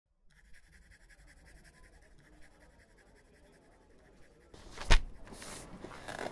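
Faint room hiss, then about five seconds in a single sharp knock, followed by a brief rustle.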